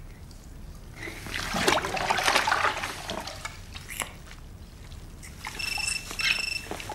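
A phone starts ringing about five and a half seconds in: an electronic ringtone in two short bursts close together. Before it, a stretch of soft noise from about one to three seconds in.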